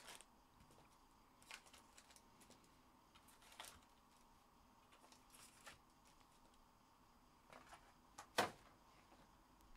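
Near silence broken by a few faint rustles and light taps of foil trading-card packs being taken from their box and set down on a stack, with one sharper tap a little after eight seconds in.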